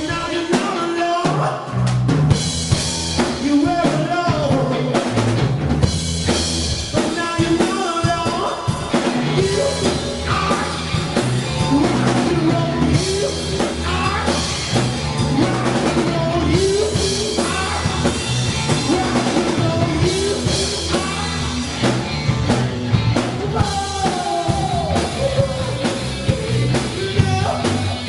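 Rock music: a band playing at a steady tempo, with a driving drum-kit beat and bass.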